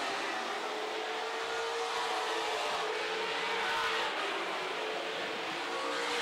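Several super stock race cars passing one after another with their engines running, a steady overlapping drone whose pitch wavers slowly.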